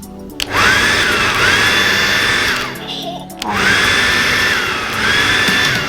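TRESemmé hair dryer blowing, its fan motor whining steadily over the rush of air. It cuts out and spins back up a few times, the whine sliding down and up again as the settings are switched.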